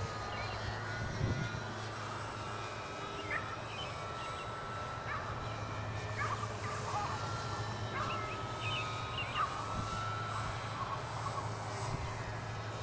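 Brushless outrunner motor (3D Hobby Shop Omega 1030Kv) turning a 12x6 electric propeller on a small RC aerobatic plane in flight, a thin whine that shifts up and down in pitch with the throttle.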